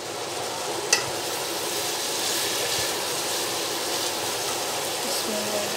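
Minced meat and chopped cauliflower sizzling in a hot frying pan while being stirred with a wooden spoon: a steady frying hiss with one sharp click about a second in.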